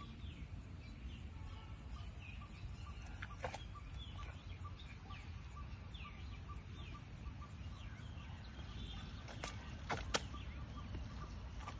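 Small birds chirping over and over in short falling calls, over a steady low outdoor rumble. A few sharp clicks break in, two of them close together near the end.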